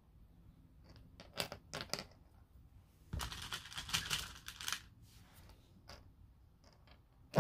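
Plastic pony beads clicking against each other as they are picked up and threaded onto string: a few scattered clicks, then a denser rattle of beads about three seconds in, and another click near the end.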